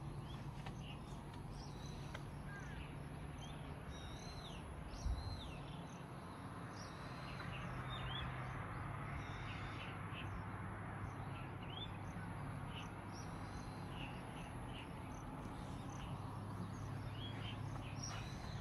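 Birds chirping in many short, scattered calls over a steady background hiss and a low hum, with a single dull thump about five seconds in.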